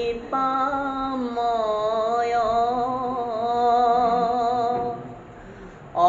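A man chanting Assamese Bhagavat verses in a slow devotional melody, holding long notes that waver in pitch; the voice drops away softly about a second before the end.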